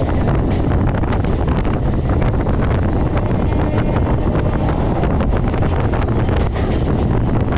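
Heavy wind buffeting the microphone held outside a fast-running EMU local train, over the steady low rumble of the train running on the track.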